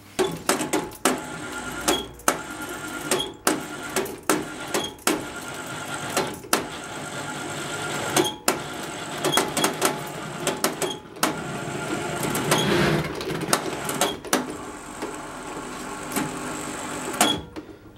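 Irregular metal clanks and knocks as a Gardner diesel engine is lowered onto its side on a hoist chain and hook, over a steady mechanical hum.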